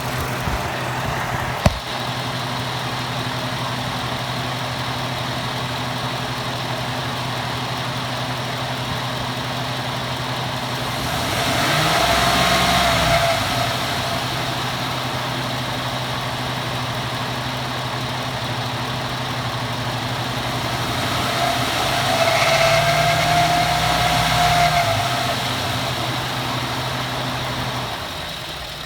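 2014 Ford F-150 4x4 engine idling, a single sharp knock about two seconds in, then revved twice. With each rev a high squealing tone rises and falls with engine speed: the grinding noise on acceleration that the owner likens to nails on a chalkboard, first only on a cold engine and now all the time.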